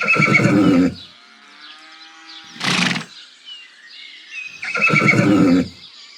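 A horse whinnying twice, once at the start and again about five seconds in, with a short burst of noise between the two calls.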